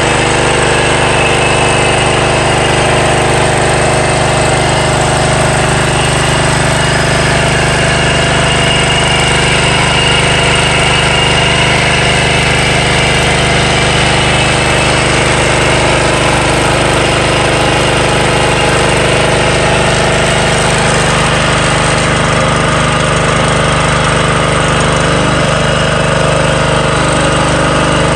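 John Deere 14SB walk-behind rotary lawn mower's small single-cylinder engine running steadily, loud and even with no change in speed. Per the owner, the engine runs well.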